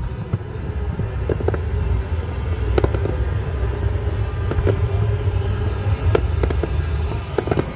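Fireworks going off in scattered sharp pops and cracks, some in quick pairs, over a steady low rumble.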